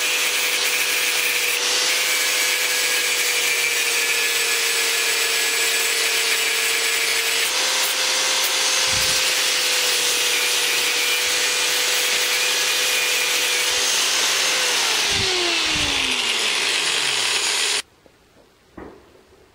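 Angle grinder grinding excess metal off a rear engine mount, running at a steady high whine. Near the end the motor is released and the whine slides down in pitch over a couple of seconds as the disc spins down.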